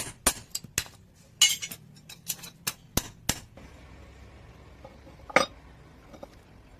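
A blacksmith's hammer striking metal in quick, irregular metallic blows while a punch is forged, about ten strikes in the first three and a half seconds, then a pause and one more loud strike.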